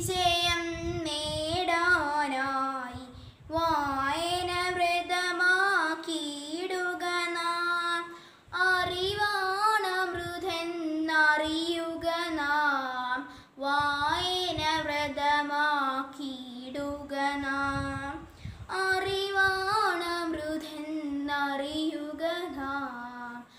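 A girl singing a Malayalam song unaccompanied, in held, wavering phrases of four to five seconds with short breaths between them.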